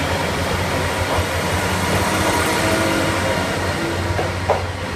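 Kiha 48 diesel railcars pulling out of the station, their diesel engines running with a steady low hum as the cars roll past. A brief higher-pitched sound comes about four and a half seconds in.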